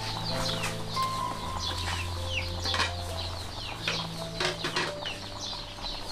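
Birds chirping: many short, falling cheeps in quick succession, over a low steady hum.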